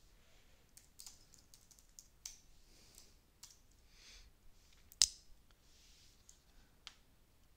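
Typing on a computer keyboard: irregular keystrokes, with one louder click about five seconds in.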